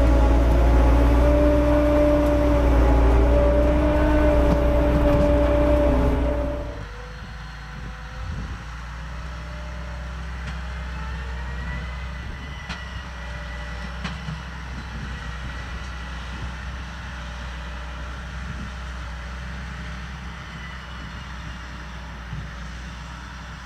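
Ropa Tiger 6 self-propelled sugar beet harvester working in the field: a loud, steady hum with a held tone, then, about six and a half seconds in, a sudden change to a quieter, more distant take of the machine running steadily with a faint high whine.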